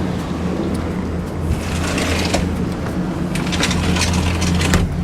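Steady low hum of a car's engine and road noise heard from inside the cabin. Short scattered hissy crackles come in over it from about a second and a half in.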